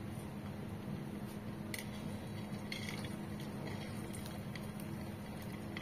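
Hot cooking oil in a kadhai sizzling softly around a small test piece of sabudana mixture, with scattered faint crackles, a sign the oil is hot enough for frying.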